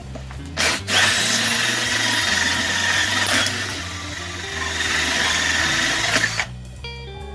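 Handheld power drill run in a short blip, then run steadily for about five seconds with a high whine, boring a hole, before it stops. Background music plays underneath.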